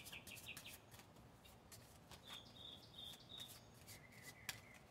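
Faint clicking and sliding of Ukiyo game cards being sorted through in the hands, with birds chirping faintly in the background around the middle.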